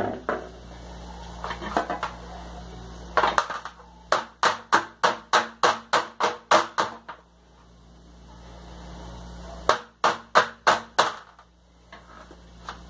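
A metal baking pan full of cake batter knocked against the countertop in quick repeated raps, about a dozen at roughly four a second, then after a pause about five more. A few softer clatters come first.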